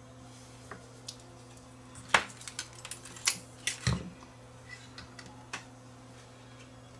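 Small hard objects clicking and clattering, as tools and parts are handled on a workbench, with the busiest run and a dull thump about two to four seconds in. A faint steady hum sits underneath.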